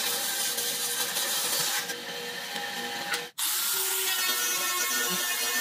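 Bandsaw running and cutting through thick wood, then after an abrupt break a little over three seconds in, an angle grinder fitted with a sanding drum running as it sands a curved wooden piece.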